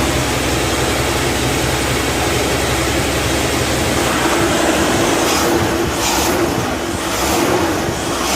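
Ford 300 inline-six engine running on propane, idling steadily as it smooths out after a cold start, with no belt squeal and no exhaust leak after a new manifold-to-pipe donut gasket.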